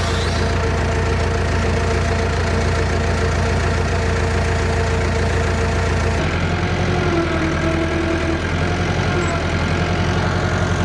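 Massey Ferguson 283 tractor's diesel engine running steadily while pulling a hay rake, its note shifting about six seconds in.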